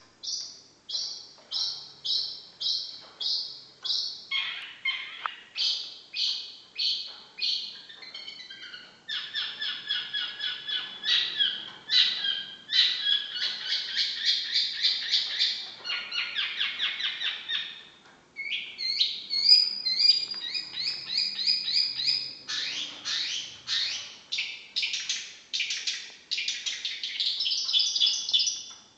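Long-tailed shrike (cendet) singing: long runs of rapid, sharp repeated notes in quick series, changing pattern from phrase to phrase, with short breaks about 8 and 18 seconds in.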